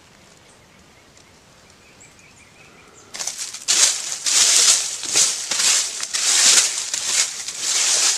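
Dry fallen leaves being swept and scraped aside by hand across bare soil, clearing a patch of ground. The rustling starts suddenly about three seconds in and goes on in quick repeated sweeping strokes.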